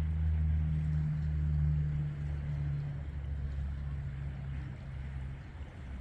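Low, steady drone of a distant military reconnaissance aircraft's engines, sinking slightly in pitch and fading.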